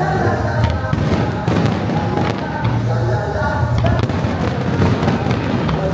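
Aerial fireworks popping and crackling in a dense, continuous barrage, with the display's synchronized music playing loudly over speakers.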